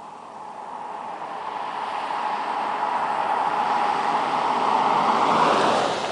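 2010 Chevrolet Camaro RS driving past at speed: its engine and road noise build steadily as it approaches, peak as it goes by close near the end, and drop in pitch as it passes.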